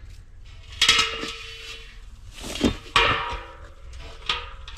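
Heavy steel propane tank knocking and clanking as it is shifted: four sharp metallic knocks, the first about a second in, some ringing briefly.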